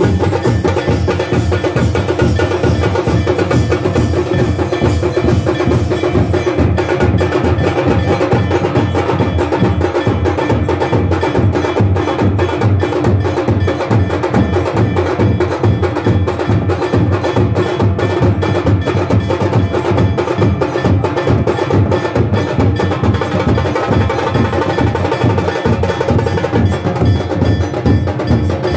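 Drums beaten in a fast, steady rhythm, with bells ringing over them.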